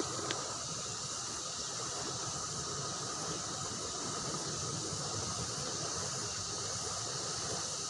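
Fast-flowing river current rushing steadily, with a brief click just after the start.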